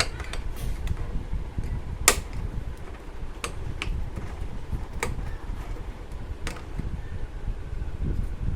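Hard plastic clicks and knocks as the cover of an air cooler is fitted back into place: a loud one about two seconds in, then several fainter ones, over a steady low rumble.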